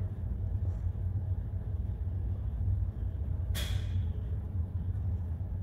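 Steady low rumble of a ferry's engines and machinery heard inside the ship, with a short hiss about three and a half seconds in.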